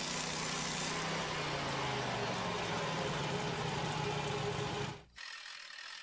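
Norwood LumberMate portable band sawmill running steadily while its band blade cuts through a log. The sound cuts off abruptly about five seconds in, leaving a quieter, steady mechanical sound.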